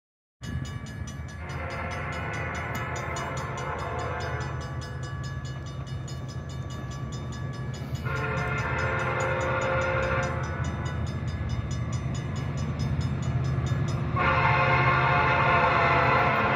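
Diesel freight locomotive's air horn sounding three long blasts, the last the loudest, over a steady low rumble of the approaching train. The blasts get louder as the train nears.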